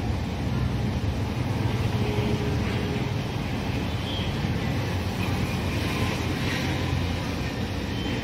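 A Kia Sonet compact SUV's engine running as the car moves slowly across the lot, a steady low rumble.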